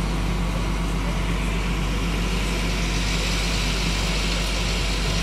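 Tow truck's engine idling steadily, a low even hum.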